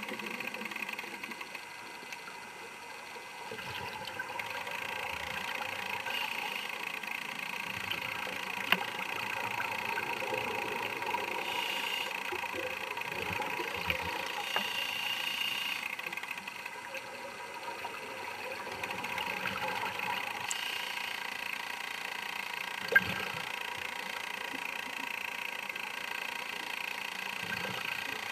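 Underwater recording through a diving camera's housing: a steady mechanical whir with a rushing hiss of scuba divers' exhaled bubbles, broken by two sharp clicks, about nine seconds in and again past twenty seconds.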